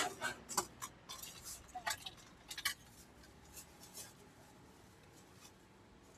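Metal serving tongs clicking against a steel tray and the fried food, with paper and plastic bags crinkling as they are filled. A flurry of sharp clicks and rustles fills the first three seconds, then only a few faint ones follow.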